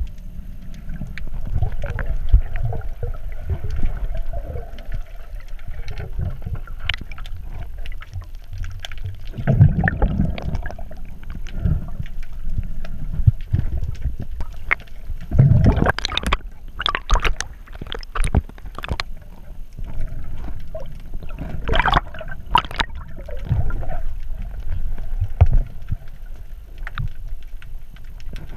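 Water sloshing and gurgling around a diver's GoPro in its underwater housing, with irregular rumbling and bubbling and scattered sharp knocks and clicks.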